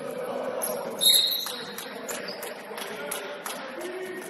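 Basketball game sounds in a large gym: a basketball bouncing and sneakers squeaking on the hardwood court, with players' voices. About a second in comes a loud, sharp, high-pitched squeak.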